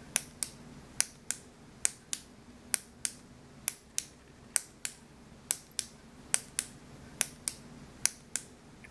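A retractable ballpoint pen clicked over and over: sharp clicks in steady pairs about a quarter second apart, a little under one pair a second.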